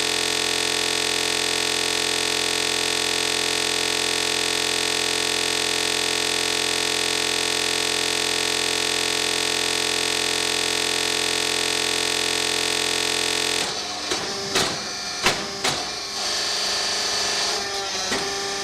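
A steady, unchanging electronic buzz made of many even tones, which cuts off abruptly about fourteen seconds in. After it comes a clay interlocking brick making machine running: a motor hum with a steady tone and several sharp knocks and clanks from the press.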